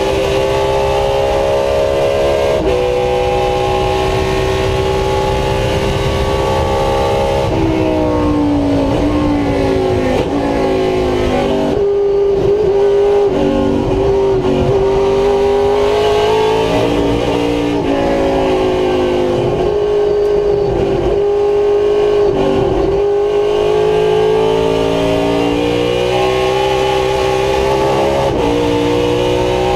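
V8 race car engine at racing speed, heard from inside the cockpit, its revs climbing and falling through the gears. The pitch drops sharply about eight seconds in, and dips several times in quick succession about two-thirds of the way through before climbing again.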